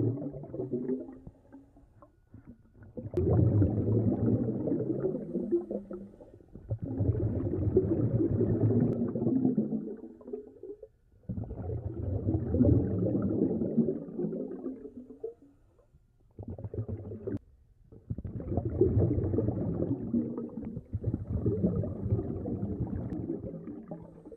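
Bubbles from a scuba diver's exhalations, recorded underwater, gurgling in repeated bursts of a few seconds each, about six times.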